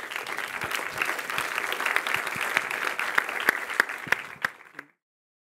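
Lecture-hall audience applauding, a dense patter of many hands clapping. The applause cuts off abruptly near the end.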